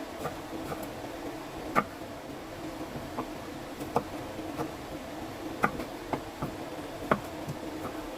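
Irregular light clicks and knocks of kitchen utensils and dishes being handled, a handful of sharper clacks standing out, over a steady low hum.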